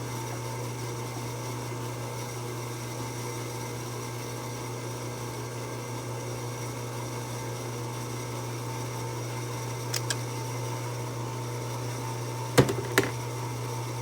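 Drill press motor running steadily, spinning a roll-crimp head that is rolling the mouth of a shotgun shell hull closed. A few sharp clicks come about ten seconds in and twice near the end.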